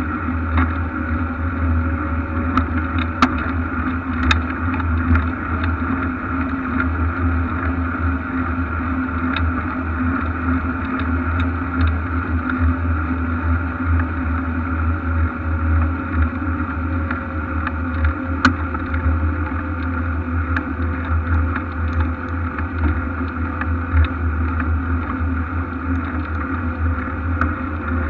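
Steady, muffled low rumble of wind and road noise on a bicycle-mounted camera while riding, with a few sharp clicks from bumps in the path.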